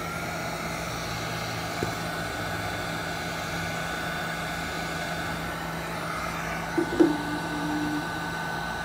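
Handheld electric heat gun blowing steadily with a whine from its fan motor, shrinking heat-shrink tubing over a battery cable connection. A brief knock about seven seconds in.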